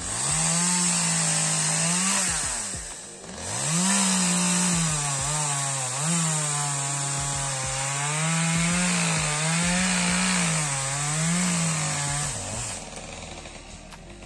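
Chainsaw running and cutting wood, its engine pitch rising and falling as the throttle and load change. It drops away briefly about three seconds in, picks up again, and cuts off about a second and a half before the end.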